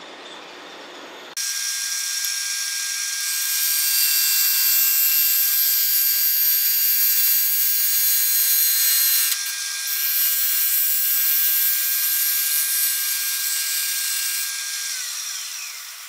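Wood lathe starting up about a second in, then a carbide turning tool cutting the spinning cylinder of glued walnut and cedar slats and epoxy, a steady high whine with cutting hiss. The cut is being taken deeper to get below chip-outs in the epoxy. Near the end the whine drops in pitch and the sound eases off.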